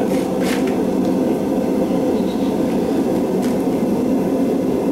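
Gas forge burners running with a steady, even rushing noise, with a few faint light clicks.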